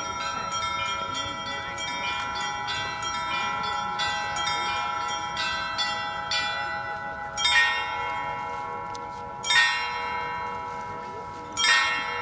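Russian church bells rung by hand in a peal: quick strokes on the smaller bells for the first half. Then three louder strokes about two seconds apart, each left ringing out.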